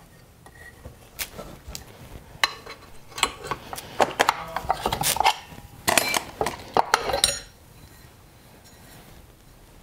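Metal clinks and clatter as a lawn mower engine's loosened flywheel is lifted off the crankshaft and set down on the workbench among tools: a string of sharp knocks over about seven seconds.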